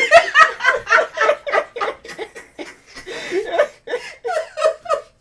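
Hearty laughter in quick repeated bursts, about three a second, going on for several seconds.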